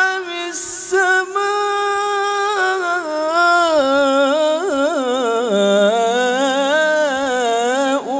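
A man reciting the Quran solo in the melodic tajwid style, without accompaniment. He sings one long, unbroken phrase, holding the notes and ornamenting them with wavering turns that slide up and down in pitch.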